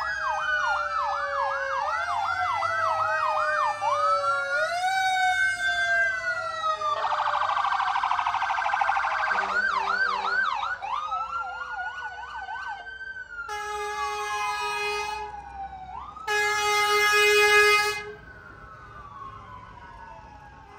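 Several fire truck sirens sounding at once, slow wails overlapping fast yelps. Two long air horn blasts come in the second half, after which the sirens fade off.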